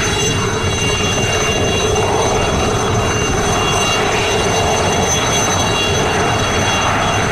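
Aérospatiale Alouette III helicopter with a Turbomeca Artouste turboshaft, hovering low. The turbine gives a steady high whine of several tones over the constant rush of the main and tail rotors.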